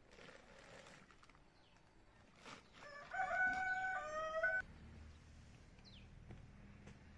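A rooster crowing once, about three seconds in: a single call of just under two seconds, stepping in pitch.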